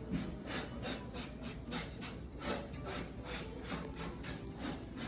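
Rhythmic scraping, about three short strokes a second, over a steady low hum.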